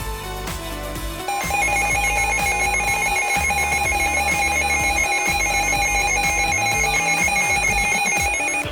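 Emergency Alert System attention tone: a loud, steady electronic alert tone with a warble in it, starting about a second in after some music and cutting off abruptly near the end.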